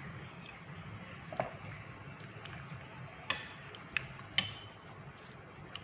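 Silicone spatula stirring chicken pieces through thick yogurt and gram-flour batter in a glass bowl: soft stirring with four sharp clicks of the spatula knocking the glass, the loudest about four and a half seconds in.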